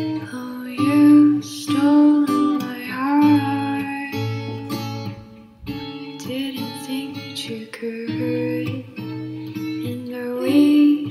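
Background music: a guitar-based song with a singing voice.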